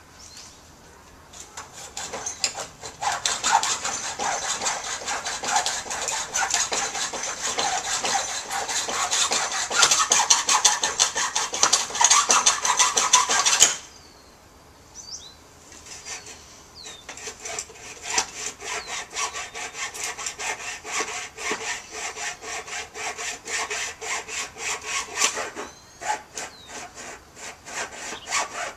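Hand saw, likely the hacksaw, cutting through a wooden fence board in quick back-and-forth strokes. The sawing stops suddenly about 14 seconds in, starts again a few seconds later and pauses briefly near the end.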